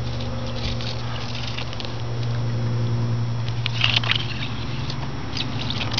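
Water pouring from a pipe outlet and splashing into standing water, with a steady low hum underneath.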